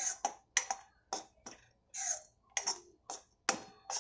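Steel spoon scraping and knocking against a kadhai while stirring a thick ground-masala paste: about a dozen short, uneven scrapes and clicks, roughly three a second.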